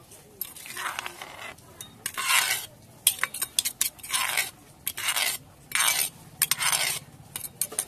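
Metal spoon scraping around the inside of an earthenware mortar, scooping out pounded noodle salad: a series of about six rasping scrapes, each about half a second long, with a few light clicks of metal on clay between them.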